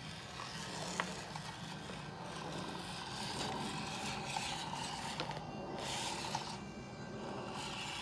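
Mini RC crawler driving over rocks: a steady rasping mix of its small motor and gears running and its tyres and chassis scraping on stone, with a sharp click about a second in.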